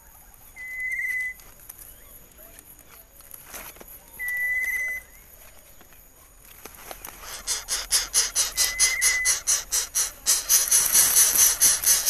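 A short, wavering whistle call comes three times, about every four seconds. From about halfway, a fast rhythmic rasping hiss of about six pulses a second builds up and becomes the loudest sound.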